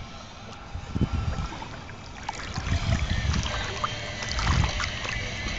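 Splashing and sloshing of river water close to the microphone, with scattered small crackles and several low thumps of the camera being handled, loudest about four and a half seconds in.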